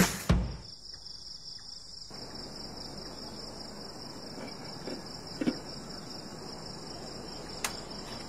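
Crickets trilling steadily, a continuous high-pitched chirr, after background music cuts off right at the start. A couple of faint knocks are heard in the middle.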